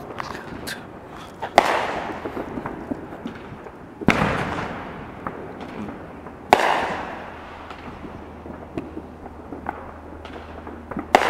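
Fireworks going off: four loud bangs, about one and a half, four, six and a half and eleven seconds in, each trailing an echo that dies away over a second or two, with scattered smaller pops and crackles between.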